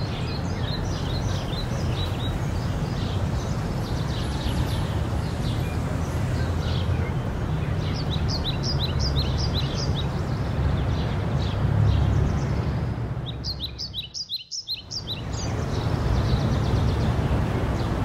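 Many small birds chirping in quick short calls over a steady low rumble of outdoor background noise. The sound drops out briefly about three-quarters of the way through, then returns.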